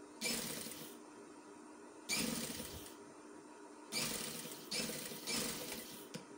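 Sewing machine stitching a fabric border in short runs: five spurts of about half a second to a second each, with brief pauses between as the cloth is repositioned.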